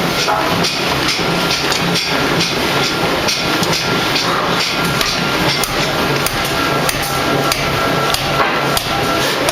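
Ring rolling mill at work: steady machine noise and a low hum, with frequent irregular metallic knocks and clanks.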